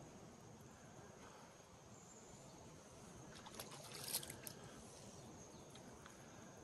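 Near silence: faint outdoor background by the water, with a few small splashes and clicks about four seconds in.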